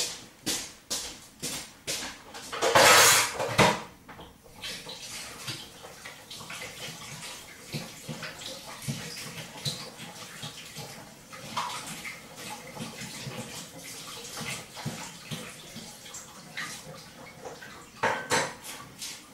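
Dishes and cutlery clinking and knocking as they are put into a kitchen sink, with a short loud rush of running tap water about three seconds in and another brief loud clatter near the end.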